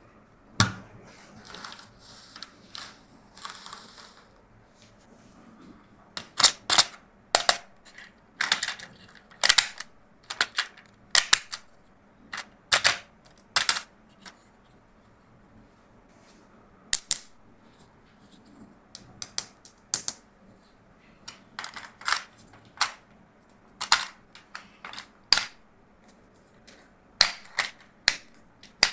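Hard plastic toys being handled, with many sharp irregular clicks and knocks as pieces are set down, snapped and moved, plus a soft rustle in the first few seconds.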